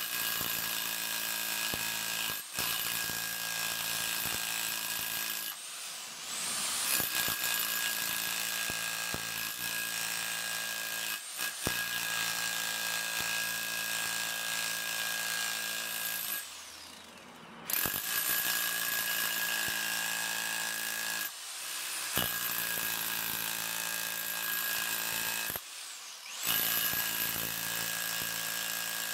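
TOTAL TH115326 1500 W SDS-plus rotary hammer in chisel mode, its chisel bit hammering into a lump of stone with a rapid, steady buzz of blows. It lets off briefly several times, the longest pause a little past halfway, then starts again.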